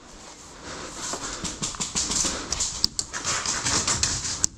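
A person panting hard close to the microphone, with gear rustling and a couple of sharp clicks.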